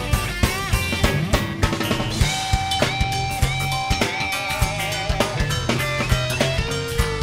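Blues band playing an instrumental passage: a guitar lead with long held, wavering notes over bass and a steady drum beat.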